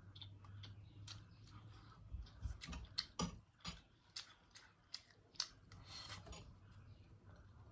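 Close-up eating sounds from a meal of spicy Maggi noodles and bread: an irregular run of sharp mouth smacks and clicks, starting about two seconds in and stopping after about six seconds.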